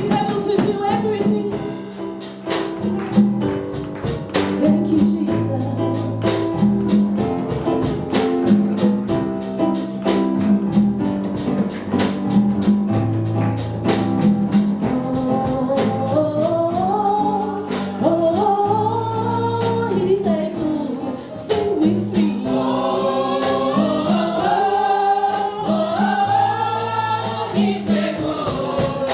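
Live gospel music: a band plays a steady beat of drums and tambourine over a repeating bass line, and singing voices carry the melody from about halfway through.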